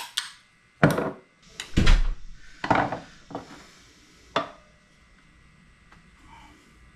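A series of about six knocks and clunks of tools and metal parts being handled while the gas tank is taken off a small pressure-washer engine, the loudest about one and two seconds in, then quiet handling.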